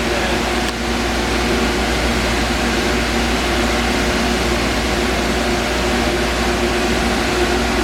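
Munters Cargocaire desiccant dehumidifier running with its fans on: a steady blowing rush with a low hum and a few steady tones, just after being switched on to manual. A faint click a little under a second in.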